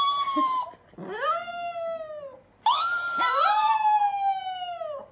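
Chihuahua howling: three long, high howls, each falling in pitch at its end, with short pauses between them. A second howling voice overlaps the last howl.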